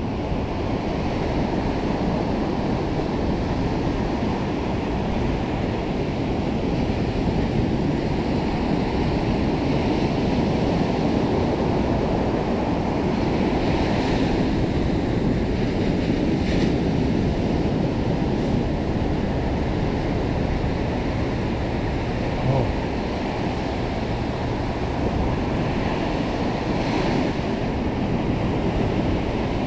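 Ocean surf washing onto the beach in a steady rush, with a few louder hissing wave breaks, and wind rumbling on the microphone.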